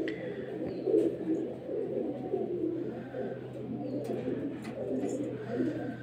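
Domestic pigeons cooing in a continuous low murmur of overlapping coos, with a few short high chirps and a steady low hum underneath.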